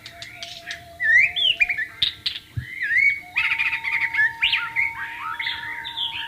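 White-rumped shama singing a varied, rapid run of whistles, slurred notes and chirps, denser in the second half. Beneath it, soft bamboo flute (suling) music holds long, steady notes.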